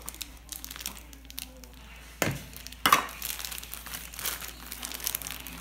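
A plastic packet crinkling as it is handled, with two sharp knocks a little over two seconds in.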